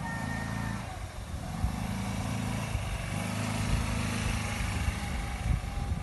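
Small motor scooter engine running steadily as the scooter rides along the road.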